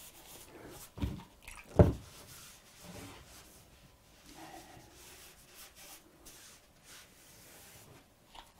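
A paintbrush loaded with ink rubbing and dabbing across a large sheet of paper, with two dull knocks about one and two seconds in.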